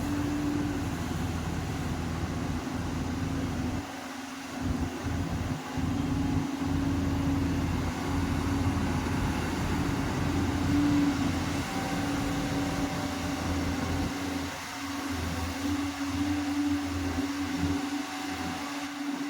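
Diesel engine of a heavy earthmoving machine running steadily, with a steady whine over a low rumble; the rumble drops away briefly about four seconds in and again near fifteen seconds.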